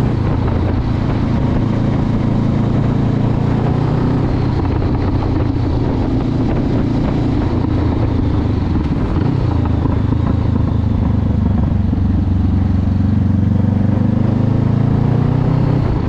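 Honda CB500X's parallel-twin engine running steadily under way on a road ride, with its pitch rising a little near the end.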